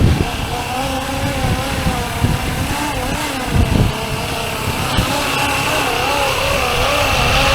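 Fly-Wing MH-60R SeaHawk 470-class RC helicopter in flight: its electric motor and rotor whine, wavering up and down in pitch as the throttle changes, over a gusty low rumble. A thin, steady high tone joins about five seconds in.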